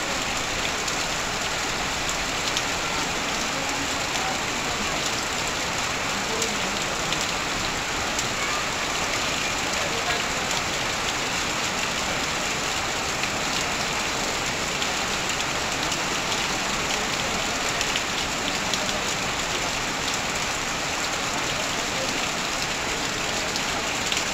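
Heavy rain falling steadily on corrugated metal roofing and sheet fences, with a dense patter of drops and runoff pouring off the roof edge.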